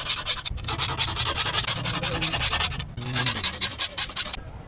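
Rapid, steady scraping strokes on a hard surface, briefly interrupted twice and stopping just before the end.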